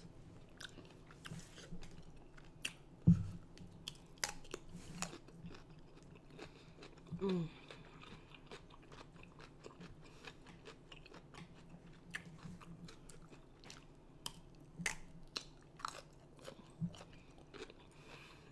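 Close-miked chewing with crunchy bites, wet mouth clicks and smacks scattered throughout. A single loud thump comes about 3 seconds in, and a short vocal sound follows at about 7 seconds.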